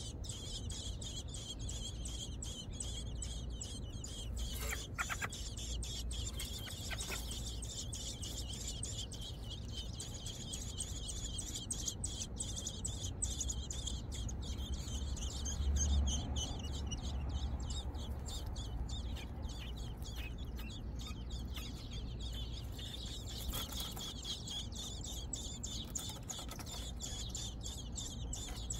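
American robin nestlings begging: dense, rapid high-pitched peeping that goes on without a break, over a low steady rumble.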